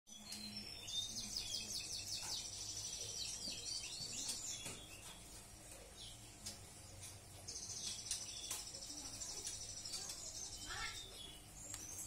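Sanger birds singing: two long phrases of fast, high trilled warbling, the first from about a second in to about four and a half seconds, the second from about seven and a half to ten seconds, with a few short chirps near the end.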